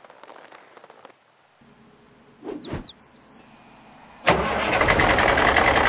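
A few quick, high, falling bird chirps. Then, about four seconds in, a heavy articulated dump truck's diesel engine cuts in suddenly and runs loudly and steadily as the truck drives.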